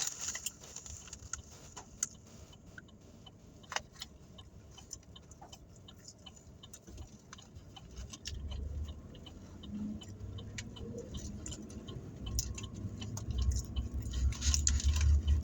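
Low rumble of a car, building up in the second half, with scattered small clicks and handling noises from inside the cabin.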